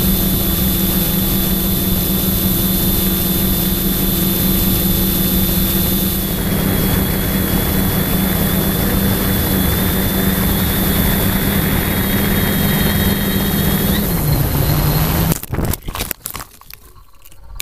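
Quadcopter's electric motors and propellers humming steadily as picked up by the onboard camera, the pitch dropping about 14 seconds in. About a second later comes a quick run of sharp knocks and the motor sound cuts out: the quadcopter crashing.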